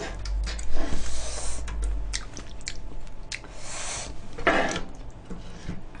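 A wooden spatula and a metal spoon stirring and scraping fried rice across an electric grill pan, with frequent sharp clicks of the utensils on the pan and short rasping scrapes. This is rice being stir-fried in leftover spicy sauce.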